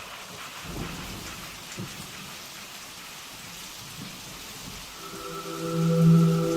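Steady rain falling, with a few low rumbles of thunder. About five seconds in, a sustained low musical chord fades in over the rain.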